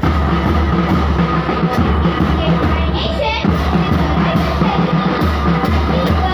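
Marching band playing a march: bugles over a steady bass drum beat, with cymbals.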